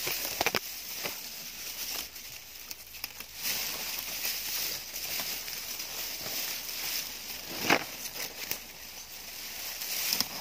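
Dry grass stalks rustling and crackling as they are brushed and pushed aside by hand, with a few sharp snaps, the loudest about three-quarters of the way through.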